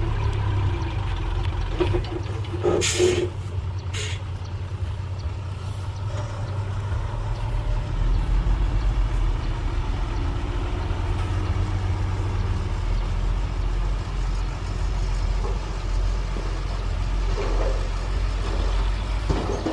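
Heavy diesel dump truck engine running steadily with a low rumble. Two short, sharp hisses of released air come about three and four seconds in, typical of a truck's air brakes.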